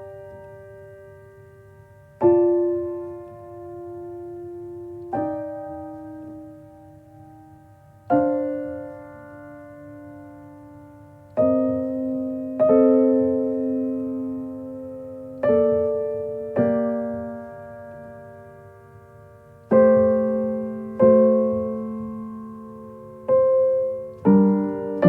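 Slow solo piano background music: soft chords struck every few seconds, each left to ring and fade, coming a little closer together near the end.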